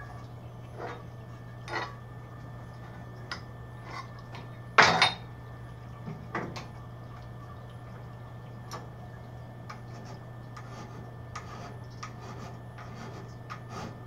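Steel angle iron being handled and set in a bandsaw vise: scattered light metal clinks and knocks, the loudest a sharp double clank about five seconds in, over a steady low hum.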